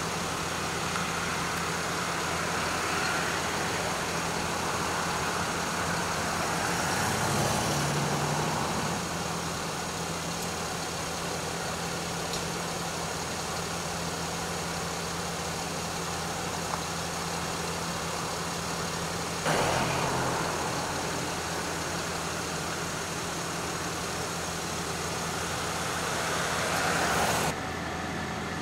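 A parked emergency vehicle's engine idling with a steady low hum, with a couple of louder swells of noise over it.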